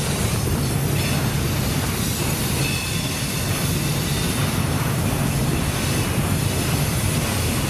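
HO-scale model freight cars rolling past on a curve of layout track: a steady rumbling whir of small wheels on the rails with a low hum beneath.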